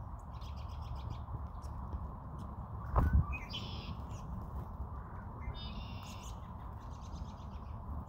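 Small songbirds calling at a feeding spot: several short runs of high chirping calls, with a low thump about three seconds in over a steady low rumble.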